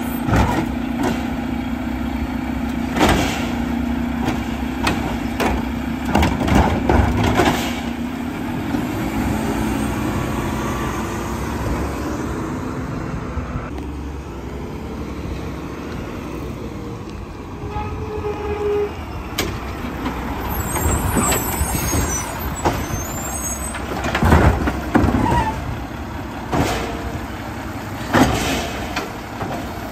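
Mack split-body automated side-loader garbage truck running, with a held hydraulic tone in the first several seconds while its arm works, and loud knocks and clanks as plastic trash carts are lifted, shaken out and set back down. Quieter in the middle while the truck comes up the street, then louder clanks near the end as the arm raises another cart.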